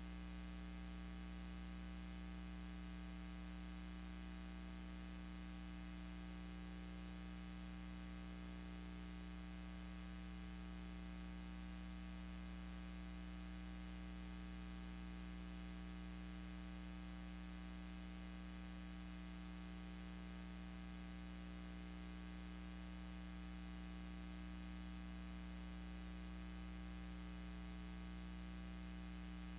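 Steady electrical mains hum with a buzzy stack of overtones and a faint hiss, unchanging throughout, with no other sound: the background noise of a silent film transfer.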